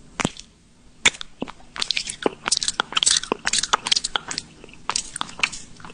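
Close-up crunchy chewing and biting, a string of sharp crisp crunches that comes thick and fast through the middle and thins out near the end.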